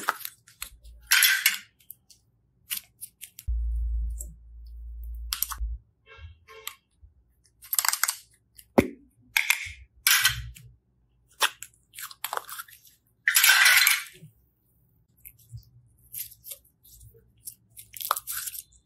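Small clear plastic cube boxes being handled: scattered sharp plastic clicks and snaps and short scraping rustles, with pauses between them, and a low hum for about two seconds a few seconds in.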